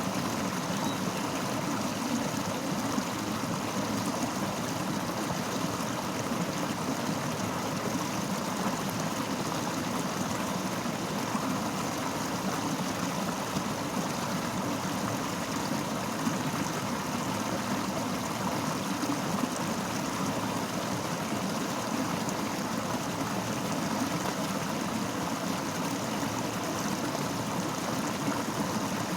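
Fast-flowing river rushing steadily over rocks, a continuous even water noise with no breaks.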